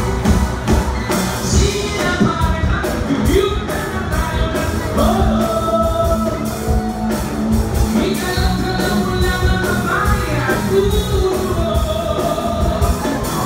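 Live rock band playing: drums, electric guitars and keyboard, with a voice singing over them.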